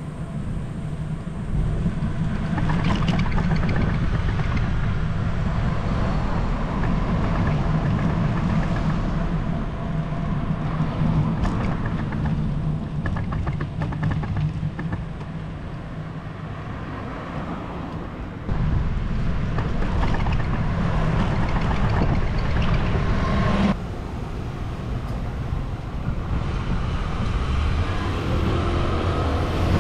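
Street noise on a moving bicycle-mounted camera: steady low wind rumble on the microphone with road and traffic noise. The level drops and rises abruptly a few times.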